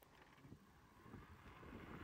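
Wind buffeting the microphone of an accelerating electric bike, starting quiet and growing steadily louder as speed builds. The bike's motor itself is close to silent.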